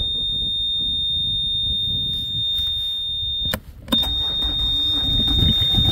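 Excavator's warning buzzer sounding one steady high-pitched tone with the key on before a cold start. It cuts off briefly about three and a half seconds in, then sounds again over a low rumble that grows louder near the end.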